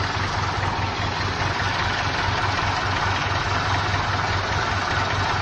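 Farm tractor engine running steadily at idle, with an even, regular low throb.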